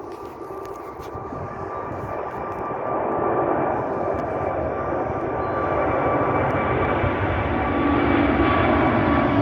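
Jet airliner's engines growing steadily louder as it passes close by: a deep roar with a steady whine over it.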